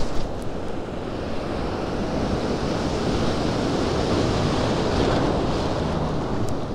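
Ocean surf washing in around the shallows, the foamy swash swelling in the middle and easing off near the end, with wind buffeting the microphone. A few light clicks near the start.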